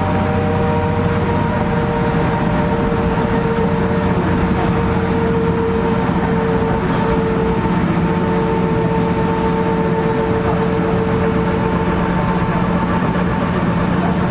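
Inside a 2000 NovaBus LFS city bus under way: the steady drone of the diesel engine and drivetrain, with a steady whine running over it.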